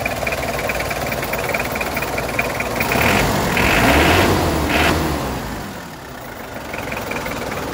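Mitsubishi Strada L200's 2.5-litre 4D56 turbo-diesel engine idling, swelling louder for a couple of seconds around the middle, then settling back.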